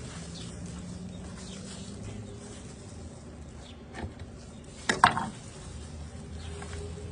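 A light click about four seconds in, then a louder, sharp clatter with a brief ring about a second later, over a low steady hum.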